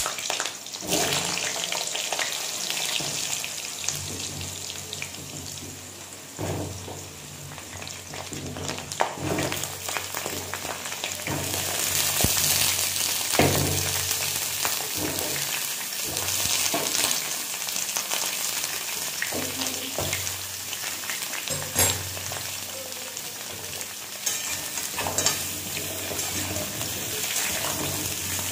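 Whole raw peeled potatoes sizzling as they are dropped into hot oil in a metal kadai, with occasional knocks against the pan. The sizzle grows louder about twelve seconds in as the pan fills, and near the end a metal spatula stirs them.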